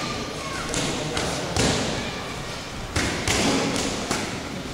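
Boxing gloves landing punches and blocks during sparring: a run of irregular sharp thuds, the loudest about one and a half and three seconds in.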